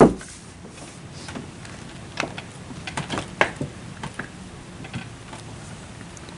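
Car door being opened from inside: a sharp thump at the start, then a few light clicks and knocks from the latch and door as it swings open and someone shifts to get out, over a steady hiss.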